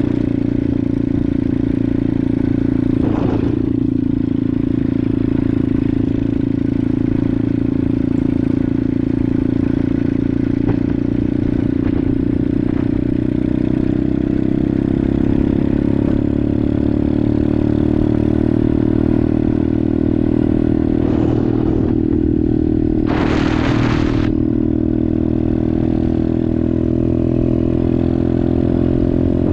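Dirt bike engine running steadily at idle, its pitch drifting slightly, with a short hiss of about a second about three-quarters of the way through.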